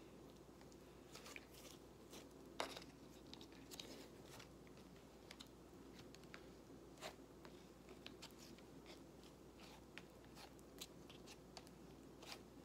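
Faint, scattered clicks and crackles from a soft yellow dough-like mass being squeezed and pressed into a clear plastic tub. One sharper click comes about two and a half seconds in.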